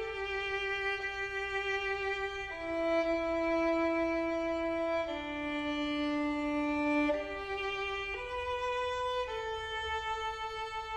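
Slow violin melody of long held notes, moving to a new note every one to two and a half seconds.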